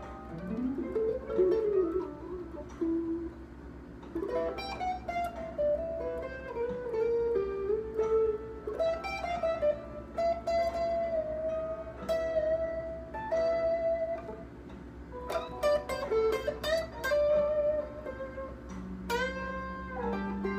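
Stratocaster-style electric guitar playing a slow blues lead in A: single-note phrases with string bends and vibrato, pausing between phrases.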